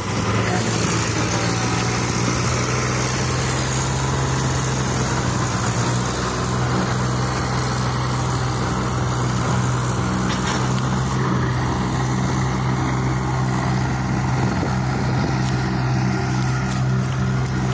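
Diesel engines of a John Deere 5310 and a second tractor running steadily under load, hauling a loaded sugarcane trolley.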